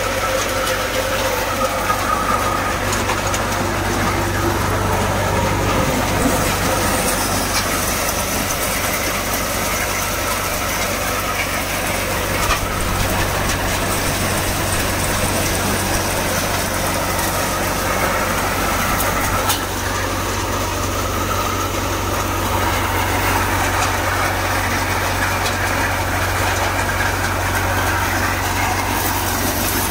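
Tractor-driven multi-crop thresher running steadily while threshing maize cobs: the drone of the tractor engine under the rattle and rush of the threshing drum and blower.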